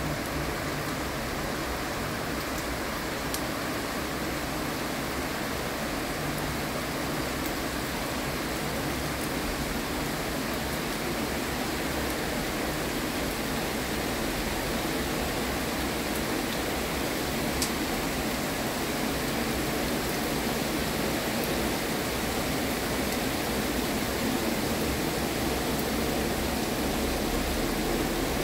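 Rain falling in a steady, even hiss, with a couple of faint sharp ticks.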